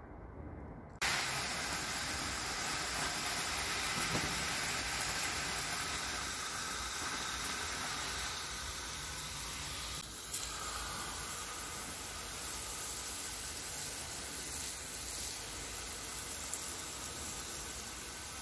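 Garden hose spray nozzle hissing steadily as a fine spray of water falls on bare soil. The spray starts abruptly about a second in.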